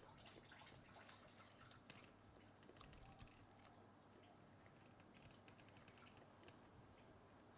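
Near silence with faint scattered clicks: a person quietly chewing a piece of cooked snapping-turtle shell gelatin.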